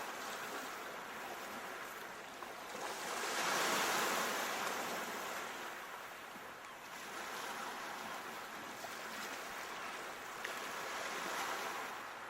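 Sea waves washing ashore in a steady rush, surging loudest about four seconds in and again near the end.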